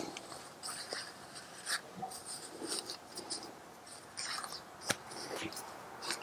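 Fabric being rustled and handled by hand, irregular scratchy rustles with a few light taps and clicks.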